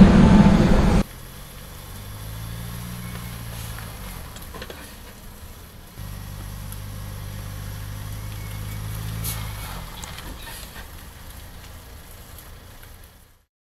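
A loud burst of vehicle noise cuts off abruptly about a second in. A truck then runs at low speed with a low engine hum that swells twice and fades out near the end.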